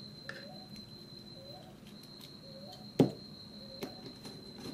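Quiet handling of a wire being fitted into a terminal of a plastic 8-pin timer socket: small ticks and one sharp click about three seconds in. A faint steady high whine runs underneath.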